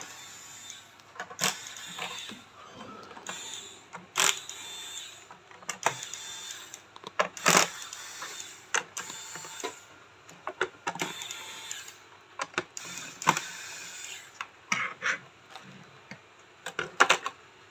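Small electric screwdriver whirring in short runs of about a second each, several times over, as it backs screws out of a robot vacuum's base. Sharp clicks come between the runs.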